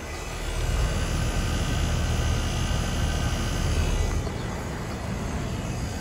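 Outdoor unit of a 1991 Trane XE1000 Weathertron heat pump running steadily in cooling mode: a steady hum from the compressor and condenser fan.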